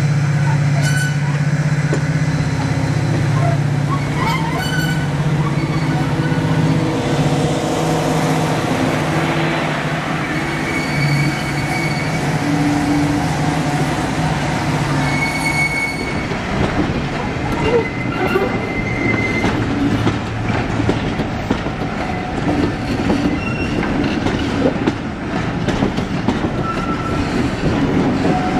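Class 55 Deltic diesel locomotive pulling away with its train, its twin Napier Deltic two-stroke engines giving a steady deep hum. About halfway through the hum fades and the passing coaches take over: wheels clattering over rail joints, with a few brief wheel squeals.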